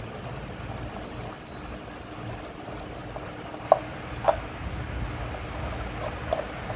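Labrador puppy eating ice cubes from a stainless steel bowl, the cubes clinking against the metal: two sharp, ringing clinks a little past halfway and a few lighter ones near the end, over a steady low hum.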